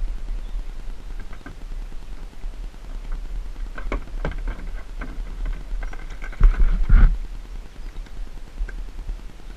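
Kayak paddling heard through a head-mounted GoPro's waterproof case: a steady muffled low rumble, with a run of knocks and splashes from the paddle and hull around the middle. The two loudest knocks come about two thirds of the way in.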